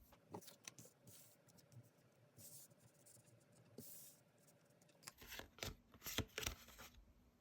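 Faint handling of tarot cards: light clicks and short swishes of card against card, with a flurry of sharper snaps near the end.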